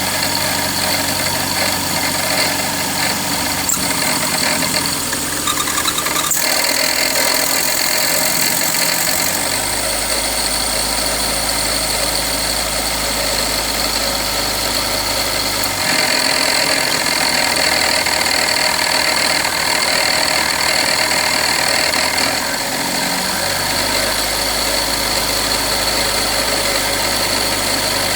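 Subaru Dex engine idling with an abnormal noise from its water pump, with a steady high-pitched whine over the running engine; the pump is failing and leaking coolant.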